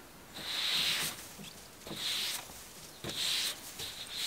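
Snow swishing in slow, regular strokes, about one a second.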